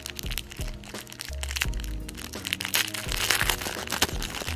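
Clear plastic bag crinkling and crackling in the hands as it is squeezed and pulled open, with many short crackles, over background music.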